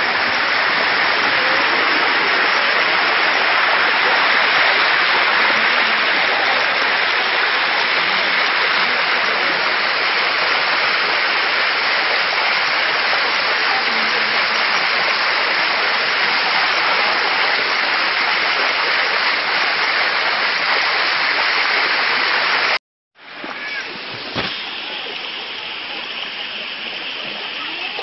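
Water rushing down a limestone waterfall: a steady, dense rush of falling water. It breaks off for an instant about three-quarters of the way through and comes back a little quieter.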